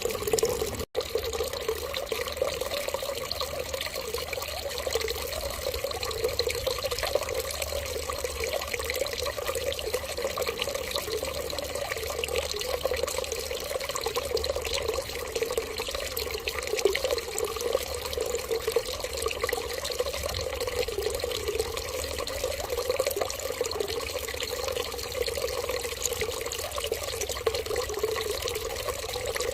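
Steady running water, like a tap running, continuing unchanged throughout, with a momentary cutout about a second in.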